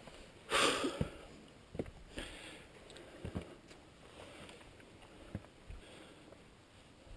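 A climber scrambling over granite: a short, loud rush of noise about half a second in, close to the microphone, then scattered light knocks and scrapes of hands, boots and gear on the rock.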